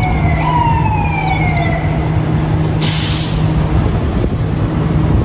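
Emergency vehicle siren: it jumps up and glides slowly down in pitch, twice, then stops about two seconds in. Under it runs a steady low engine drone, and about three seconds in there is a short, loud hiss.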